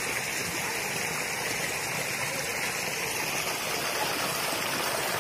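Shallow stream water pouring steadily over a woven reed mat, a constant rushing.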